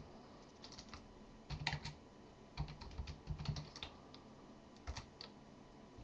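Typing on a computer keyboard: faint, irregular runs of key clicks with short pauses between them.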